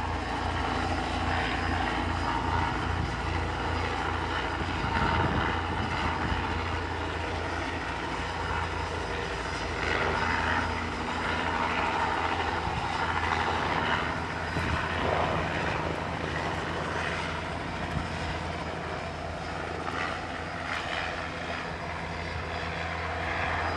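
Helicopter hovering and holding position, its rotor and engine making a steady drone.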